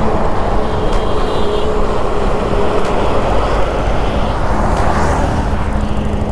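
Yamaha MT-15's 155 cc single-cylinder engine running at a steady cruising speed, mixed with strong wind rush over the microphone and tyre and road noise.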